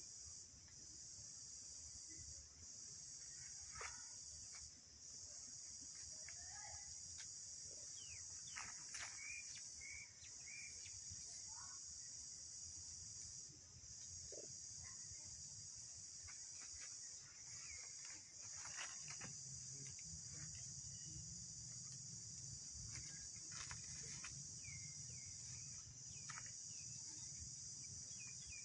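Faint, steady high-pitched insect chorus that drops out briefly every few seconds, with scattered short chirps and squeaks over it.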